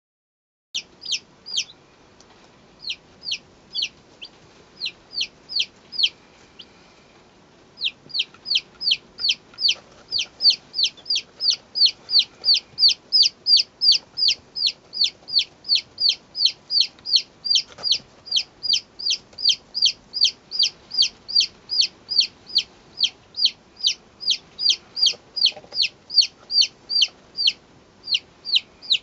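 Day-old Light Sussex chicks peeping: short, loud, high calls that fall in pitch, repeated at about three a second. They begin about a second in, break off briefly around seven seconds in, then go on without a break.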